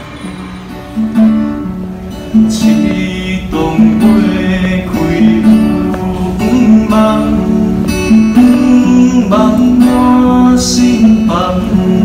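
Background music: an acoustic guitar strumming steadily, with the strumming picking up about a second in.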